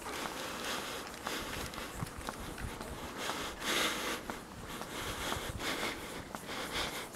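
Footsteps on an asphalt path at a steady walking pace, picked up by a handheld camera, with a few swells of hiss.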